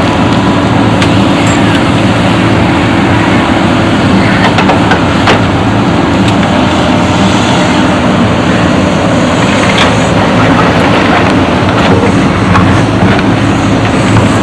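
Diesel engine of a backhoe loader running steadily at work, with a dense rushing noise and a few sharp knocks.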